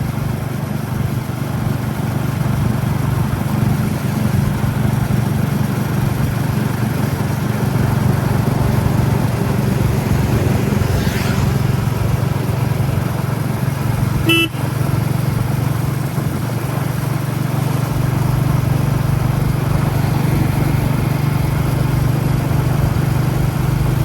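Royal Enfield Classic 350's single-cylinder engine running steadily under way, heard from the rider's seat, with its low exhaust thump. A short horn toot sounds a little past halfway.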